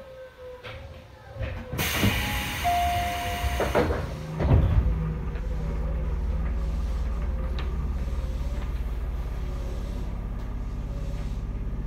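Tobu 10000 series electric train at a station stop: a hiss of air lasting about two seconds with a brief steady tone in it, then a heavy thump of the pneumatic doors about four and a half seconds in. After that comes a steady low hum with a fine regular pulse.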